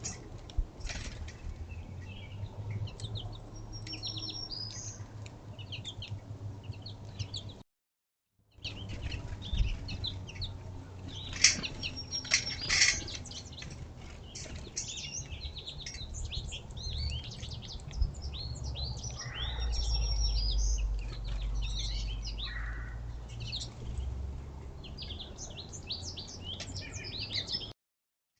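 Many small songbirds chirping and calling, with short overlapping calls over a steady low rumble. The sound drops out completely for about a second twice.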